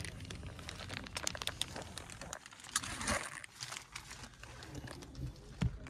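Plastic sheeting crinkling and crackling in scattered small clicks, with a brief denser rustle about three seconds in: a protective plastic cover on a new car's seat being moved and sat on.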